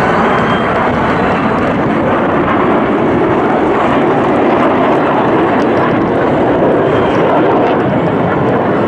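Jet engine noise from KAI T-50B jets flying overhead: a loud, steady rushing noise that holds without a break.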